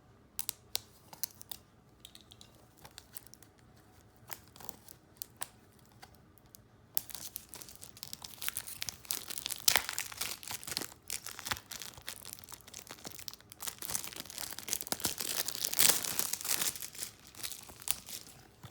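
Plastic shrink-wrap being picked at and torn off a Blu-ray case: scattered light clicks and crinkles at first, then about seconds of dense crinkling and tearing, a short pause, and another long stretch of crinkling.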